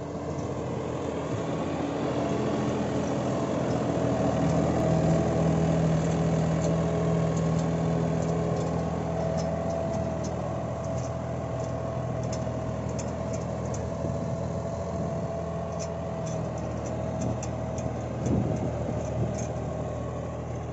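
John Deere 5405 tractor's diesel engine running steadily while pulling a laser land leveller through soil, with a steady whine over the engine note.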